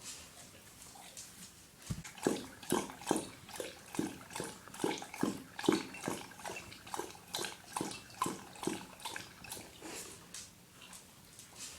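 A dog lapping water from a bowl: a quick, even run of wet laps, about three a second, loudest from about two seconds in and softer near the end.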